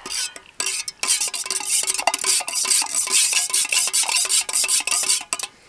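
Coffee being stirred briskly in a camp cup with a stick, rapid scraping strokes against the cup's sides with short ringing tones. It starts with a couple of strokes and runs on steadily from about a second in, stopping just before the end.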